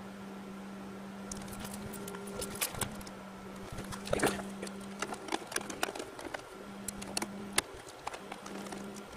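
Hands working the wiring at an air conditioner's control board: a run of irregular small clicks and rustles of wires and connectors starting about a second in, over a steady low hum.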